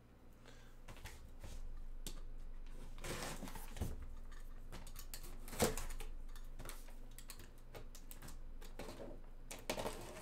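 Hands unpacking a boxed autographed football: rustling packaging and light, irregular tapping clicks, with one sharper knock about five and a half seconds in.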